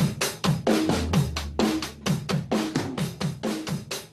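Outro music: a fast drum-kit beat, about four to five hits a second, with bass drum, snare and hi-hat.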